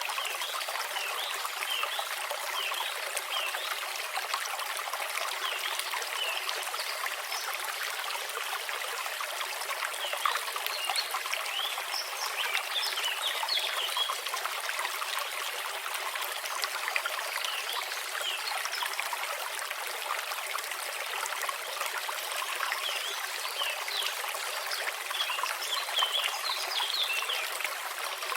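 Shallow brook babbling over stones: steady running water with many small, quick bubbling and trickling splashes.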